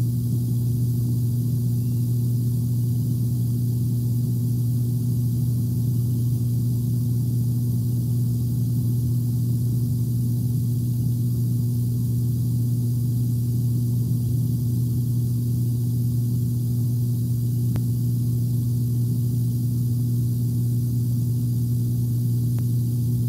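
Steady low electrical hum with a faint hiss over it, unchanging throughout, with two faint ticks near the end.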